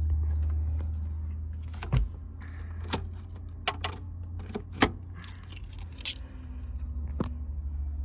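Keys on a ring jangling, with a handful of sharp clicks, as the ignition key of a 1993 Toyota Camry is worked in the switch. There is no cranking: the car won't start, which the owner suspects is a dead battery.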